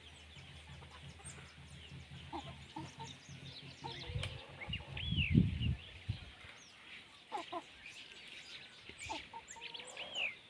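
Chickens clucking, with many short high chirps throughout. About five seconds in there is a loud dull thump.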